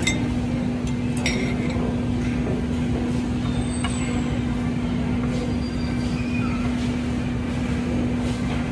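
Steady low mechanical hum with one constant pitch, and a few faint clinks of tableware over it.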